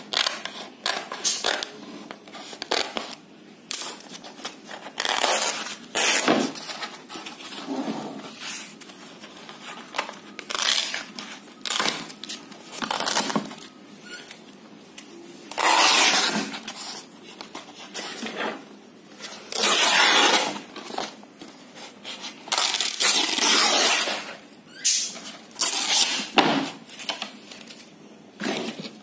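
Old painted canvas being ripped and torn by hand in irregular rips and scrapes, the longest rips lasting about a second each.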